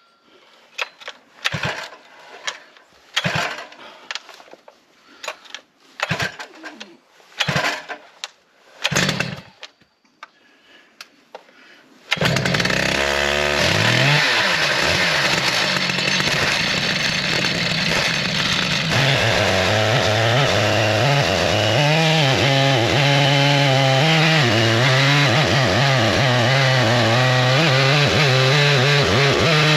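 Stihl MS881 two-stroke chainsaw being pull-started. A string of short pulls over the first dozen seconds, then the engine catches, revs up and runs steadily, its pitch wavering.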